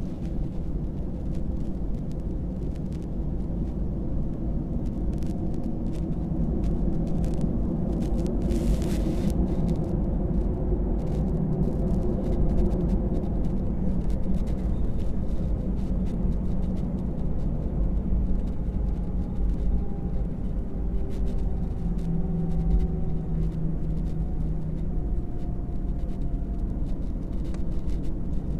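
Airbus A319's CFM56 jet engines at taxi power, heard from inside the passenger cabin: a steady low rumble with faint engine tones that drift slightly in pitch.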